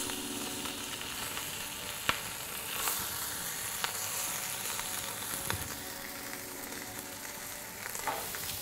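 Rack of lamb sizzling steadily as it sears in a very hot pan. The silicone tongs knock lightly against the meat and pan a few times as the rack is turned.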